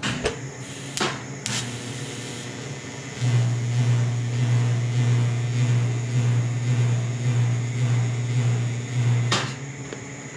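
TIG welder laying a tack weld on stainless steel with a hand-fed filler rod. A few clicks come first. About three seconds in, the arc starts and holds as a steady hum for about six seconds, then stops with a click.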